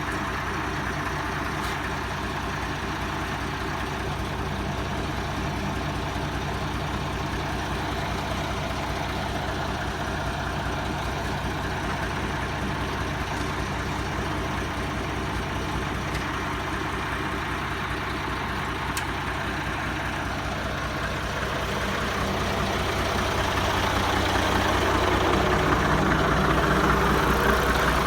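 A heavy truck's diesel engine running steadily at low revs under a heavy load. Near the end it grows louder as the revs rise.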